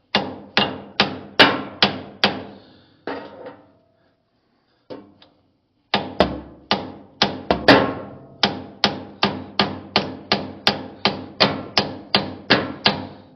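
Hammer striking a steel socket used as a drift against a seized cylinder pin, driving the tight pin out: sharp metal-on-metal blows about two to three a second, a short run, a pause of a couple of seconds, then a longer steady run.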